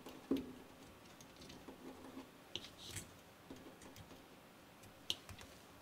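Faint, scattered clicks and light scraping from needle-nose pliers twisting two stripped wire ends together on a loudspeaker crossover board.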